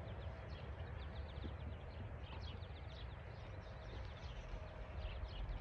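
Small birds chirping in quick repeated runs of high notes, over a low steady rumble.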